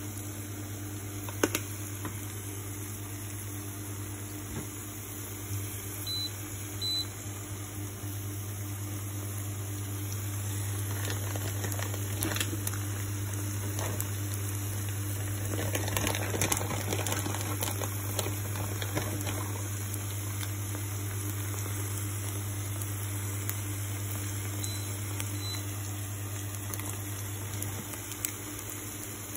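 Eggs and tuna frying in a pan: a faint sizzle and crackle over a steady low hum, with a louder stretch of crackling and rustling about midway.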